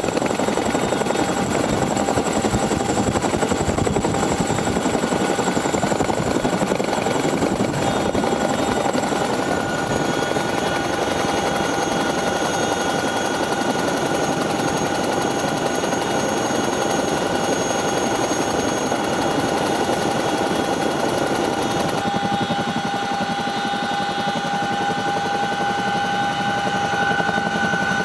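Boeing CH-47 Chinook tandem-rotor helicopter running: a fast, continuous rotor chop with steady high turbine whine tones over it. The sound shifts abruptly about three-quarters of the way through, the hiss at the top thinning and the whine standing out more.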